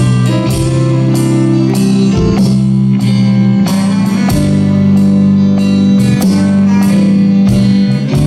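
Live praise band playing an instrumental passage without vocals: electric guitar and sustained bass notes over a drum kit keeping a steady beat of about two hits a second.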